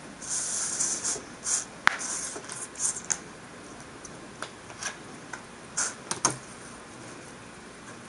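Glossy paper sheet sliding and rustling on a cutting mat while a steel ruler is moved and set down, with a sharp click about two seconds in and a few lighter taps later.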